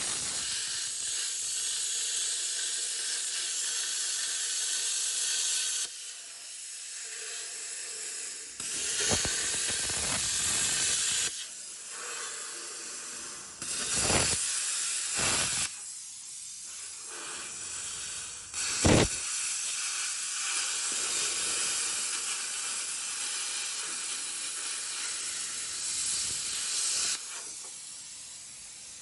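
Bestarc BTC500DP plasma cutter cutting through the Jeep's steel frame rail, a steady high hiss of arc and air. It drops back and starts again several times, with a short sharp burst about two-thirds of the way through, and fades near the end. The frame is several layers of steel thick here, and the cutter needs repeated slow passes to get through.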